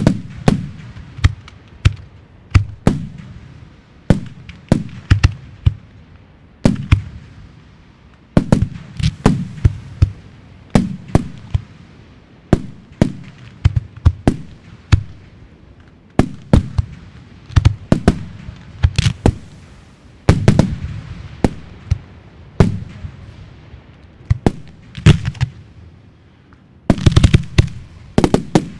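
Fireworks display: a steady run of sharp bangs, about one or two a second, each followed by a low rolling rumble, with a dense rapid cluster of bangs near the end.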